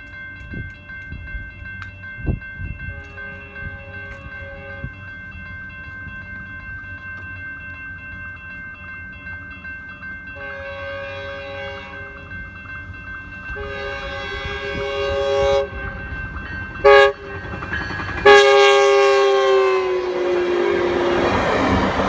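Grade-crossing warning bell ringing steadily while an approaching Metrolink commuter train sounds its horn in the standard crossing pattern: two long blasts, a short one, and a final long blast that drops in pitch as the train reaches the crossing. The noise of the passing train builds near the end.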